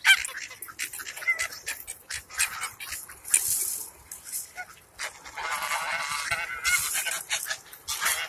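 A flock of domestic geese honking and calling, with a longer run of calls in the second half, over many sharp clicks and rustles from the crowding birds.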